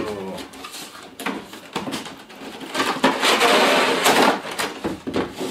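Clear plastic blister packaging crinkling and crackling as it is pulled out of a cardboard box and handled, with scattered clicks and scrapes. The loudest stretch of crackling starts about three seconds in and lasts over a second.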